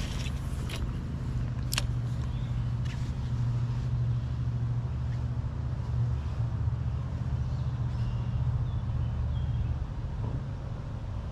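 Steady low rumble of traffic on a nearby highway, with a few sharp clicks in the first three seconds.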